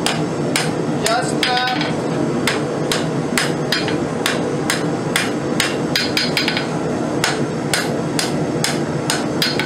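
Hand hammer striking a hot railroad spike on the anvil, about two blows a second with lighter taps in between, some blows ringing briefly: drawing out a taper on the spike.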